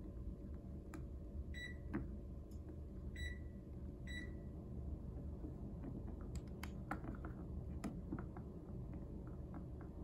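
Three short, high-pitched electronic beeps from a Panasonic room air conditioner, acknowledging signals from its remote, followed by a run of button clicks on the remote, over a low steady hum.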